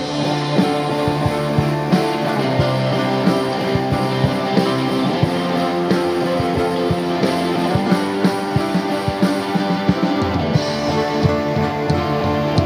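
Band music with guitar over a steady drum beat.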